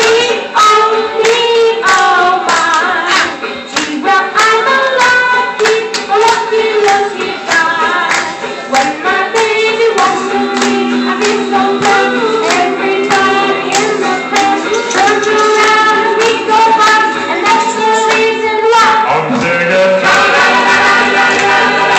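A boy singing a 1950s-style song into a microphone over instrumental accompaniment with a steady beat.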